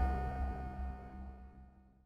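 A low rumbling drone with a few steady held tones, fading away to silence about a second and a half in.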